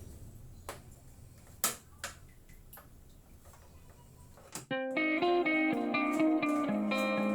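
A few faint clicks and knocks, then plucked guitar background music starts about two-thirds of the way through and is the loudest sound.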